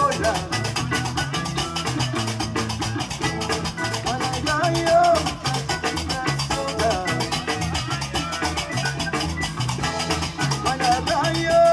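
Live band music: a guembri plays a plucked bass line under a busy drum and percussion beat, with a sung vocal phrase coming in about five seconds in and again near the end.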